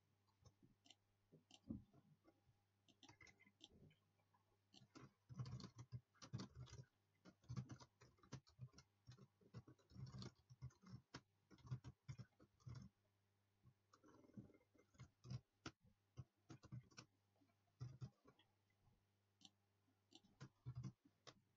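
Faint, irregular clicking and tapping of a computer keyboard and mouse as code is typed and elements are clicked.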